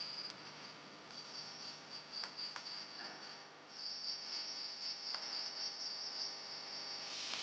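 Insects trilling: a steady high-pitched trill that breaks off briefly about three and a half seconds in, then resumes louder.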